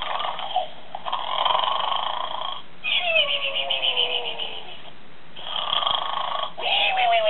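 Electronic snoring-pig toy playing its snore: a rasping snore, then a whistle falling in pitch on the out-breath, twice over.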